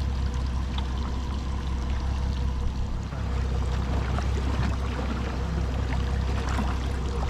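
Water sloshing and lapping against a boat's hull over a steady low rumble and a faint steady hum, with small scattered ticks and knocks.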